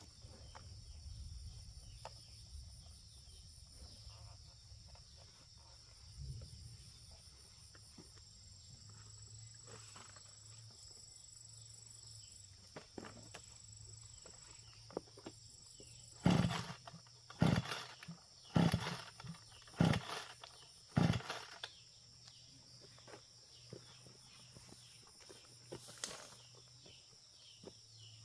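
Five heavy knocks, about a second apart, over a steady high insect drone and a faint low hum.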